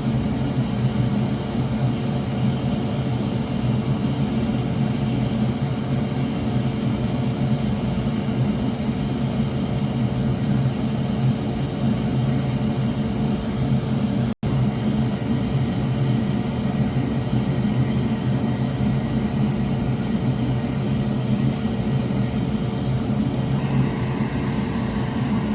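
Steady whir of an electric blower motor with a low hum, cutting out for an instant about halfway.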